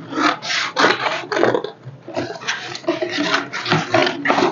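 Scissors cutting through patterned cardstock: a run of snips, about two a second, with the stiff card rustling as it is cut.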